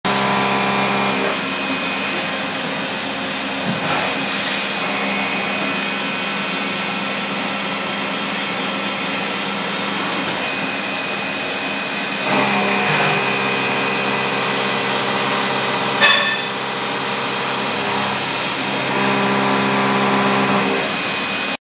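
1994 Mori-Seiki SL-25Y/500 CNC lathe with live tooling running a cut: a steady motor whine with several pitches over cutting noise. The whine changes pitch about a second in, around twelve seconds in and again near the end. One sharp click comes about sixteen seconds in.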